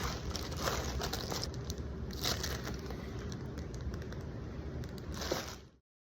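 Low steady rumble with faint rustling and clicking handling noises and a few short louder rustles, then the sound cuts off abruptly near the end.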